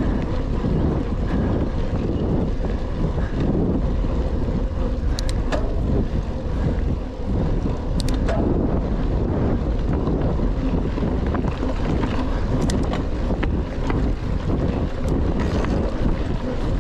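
Wind buffeting the microphone of a GoPro on a moving mountain bike: a steady low rumble, with a few sharp clicks and rattles from the bike.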